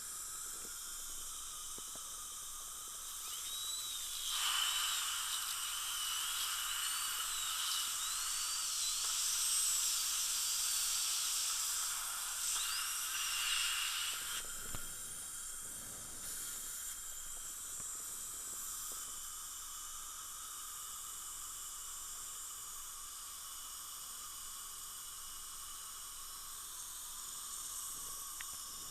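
High-speed dental handpiece whining for about ten seconds from a few seconds in, its pitch dipping and wavering as it cuts an access path through the cemented implant crown toward the abutment screw, then stopping. A steady hiss runs underneath throughout.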